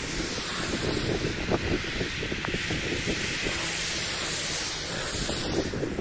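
Storm rain and wind noise heard from inside a car, with a steady hiss of tyres spraying through water on a wet road as cars pass.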